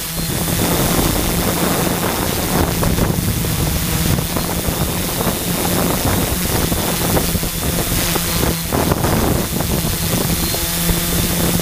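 Quadcopter's electric motors and propellers running at a steady hover, a continuous low hum heard close up from a camera mounted on the aircraft, with wind rushing across the microphone.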